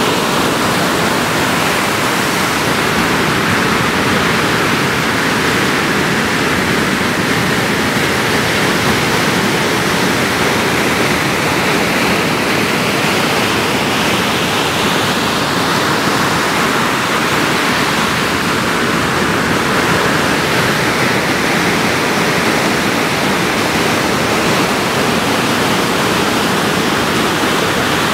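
Steady rushing noise of ocean surf, with slow swells in the hiss every several seconds.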